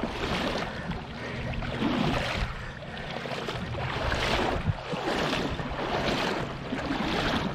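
Footsteps wading through shallow river water, each stride a sloshing splash, about one a second.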